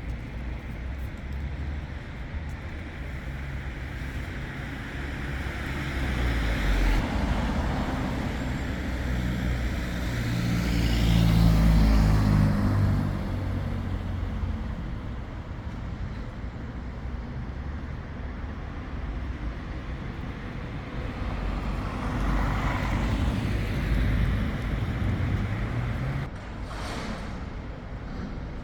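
City road traffic: a steady hum with several vehicles passing, each swelling and fading. The loudest, about twelve seconds in, is a heavy vehicle with a low engine note.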